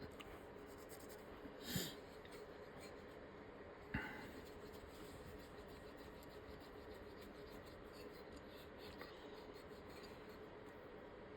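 Quiet background with a faint steady hum, broken twice by a brief scrape or knock as small parts are handled, about two seconds in and again about four seconds in.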